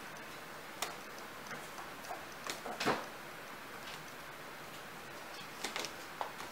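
Kittens' paws and claws tapping and scrabbling on a plastic pet carrier and wooden floor while they play: scattered light clicks at an uneven pace, bunched together about two and a half to three seconds in and again near the end.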